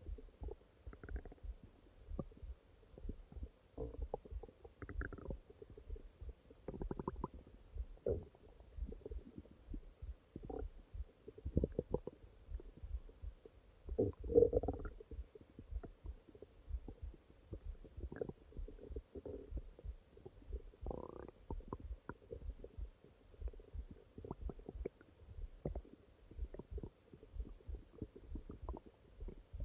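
Human stomach growling and gurgling: a run of short, irregular gurgles and pops, with one louder, longer gurgle about halfway through.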